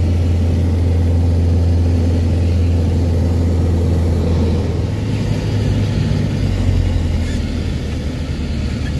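Light propeller plane's 160-horsepower piston engine and propeller droning steadily, heard from inside the cockpit; the tone of the drone shifts about five seconds in.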